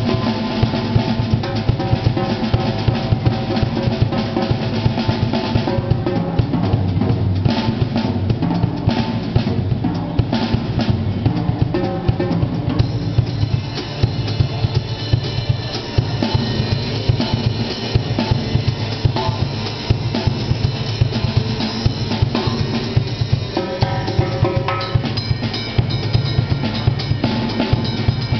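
A full drum kit played continuously in a dense groove: bass drum, snare and tom strikes with cymbals over them.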